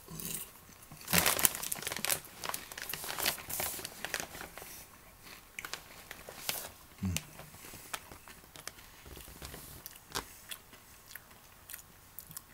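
Plastic snack bag of popcorn crinkling as it is handled, with the crunch of popcorn being chewed; the rustling is busiest in the first few seconds, then thins to scattered crinkles and clicks, with a soft thump about seven seconds in.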